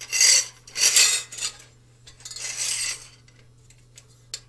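Steel coil spring and metal tube of a roof-hatch lift assembly clattering and scraping against each other as they are turned over and pulled apart by hand, in three bursts.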